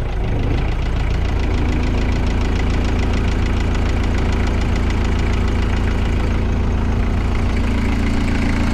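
Kubota V3600T four-cylinder turbo diesel of an Altec DC1317 disc wood chipper idling steadily, running smoothly without knocking.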